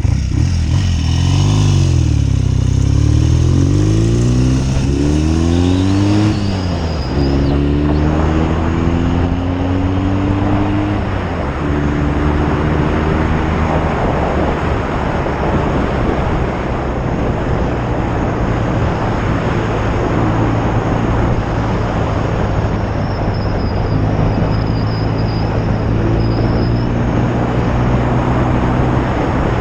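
A 1972 BSA Lightning's 650 cc parallel-twin engine under way. It accelerates and drops in pitch at two gear changes in the first dozen seconds, then holds a steady cruising note under heavy wind noise.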